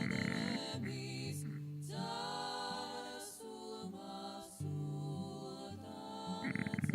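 Background music: Georgian a cappella choral singing, several voices in harmony.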